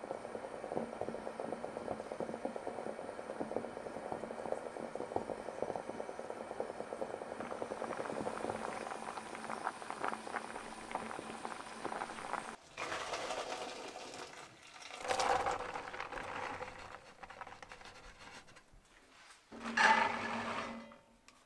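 Pot of beans at a rolling boil, bubbling steadily for about the first twelve seconds, then stopping abruptly. Scattered kitchen handling sounds follow, and near the end beans are tipped from a woven basket colander into a pot.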